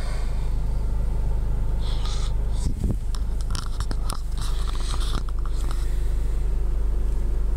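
Steady low rumble of a Toyota Corolla heard from inside the cabin, with scattered rustles and clicks about midway through.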